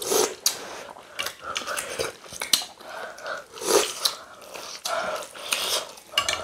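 Close-up eating sounds: chewing and biting on chicken from a pepper soup, with wet mouth noises and sips of broth from a spoon, coming in irregular clicks and short smacks.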